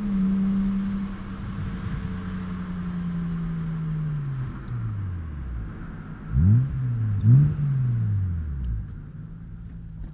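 Car engine heard from inside the cabin while driving, holding steady revs and then dropping away as the car slows. About six and seven seconds in come two quick blips of the revs, the loudest moments, before it settles to a low steady hum.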